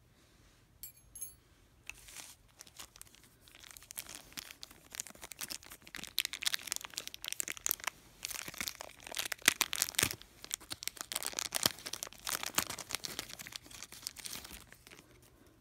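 Clear plastic packaging crinkling and rustling as hands unwrap a small doll accessory. The crackling starts about two seconds in, grows dense and busy, and dies away near the end.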